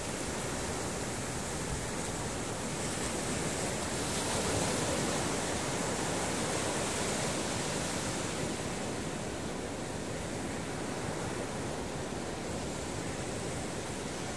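Ocean surf breaking and washing on a beach: a steady rush of water that swells to its loudest about four to five seconds in, then eases back.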